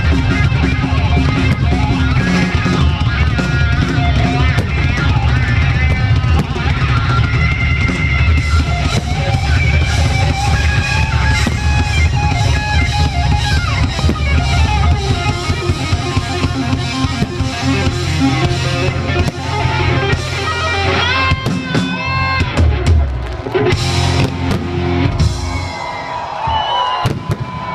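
Rock music with drums and electric guitar playing loud and steady, thinning out near the end.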